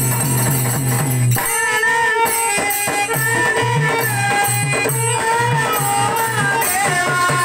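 Devotional bhajan music from a group: small hand cymbals and jingles keep a steady beat over a hand drum, and a melody line comes in about a second and a half in.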